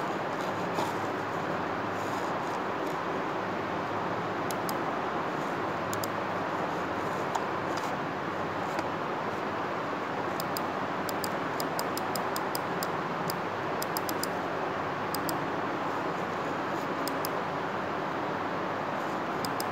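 Steady background hiss of room noise, with faint, thin high clicks scattered through it, most of them in the middle stretch.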